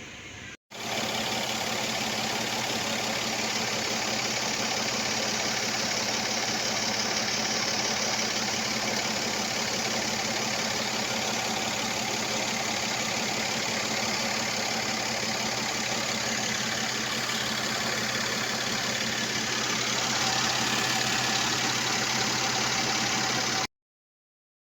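Mercedes-Benz engine idling steadily on newly fitted spark plugs; the sound cuts off suddenly near the end.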